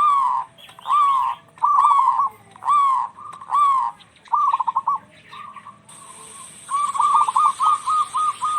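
Local zebra doves (perkutut) cooing. Arched coo notes come about once a second. About seven seconds in they give way to a quicker run of short notes, about four a second. A steady high-pitched hiss comes in about six seconds in.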